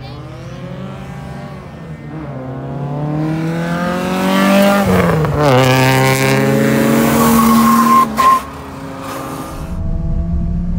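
Race car engine accelerating hard toward and past the listener, rising in pitch and loudness, with a sharp drop in revs about five seconds in and a brief cut-out just after eight seconds, as at upshifts. Near the end, a low steady engine rumble heard from inside a car.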